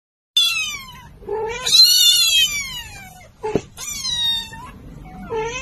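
Kitten meowing: four high-pitched cries, each falling in pitch, the second one drawn out for about two seconds, with a short click between the second and third.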